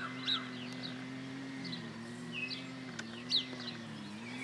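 Small birds chirping, short high calls a few times, over a steady low hum.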